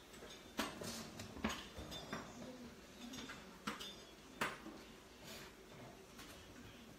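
Kitchen knife chopping through a stack of corn tortillas onto a plastic cutting board: several sharp, irregular knocks, with a light clatter of utensils.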